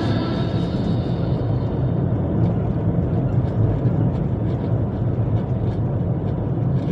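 Steady low rumble of a vehicle driving along a paved road, engine and tyre noise, with the tail of a music jingle fading out at the very start.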